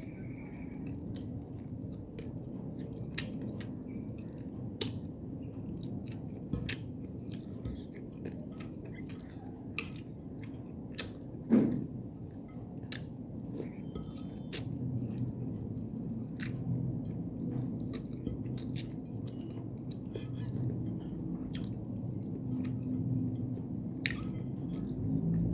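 Close-up chewing with frequent sharp mouth clicks and crunches, over a steady low hum. One louder knock about halfway through.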